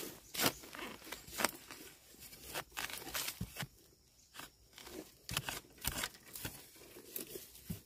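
Irregular crunching, snapping and rustling of leaf litter and plant debris, in scattered short crackles.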